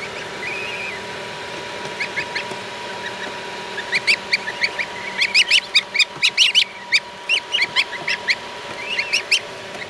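Newly hatched goslings peeping: quick, high cheeps, a few at first, then many in rapid succession through the middle, over a steady hum.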